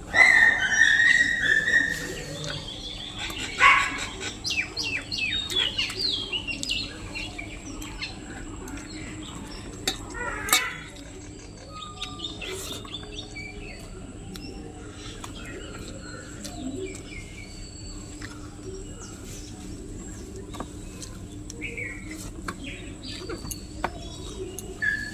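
Birds chirping and calling, loudest in the first several seconds with a quick run of falling chirps, then scattered chirps over a steady background.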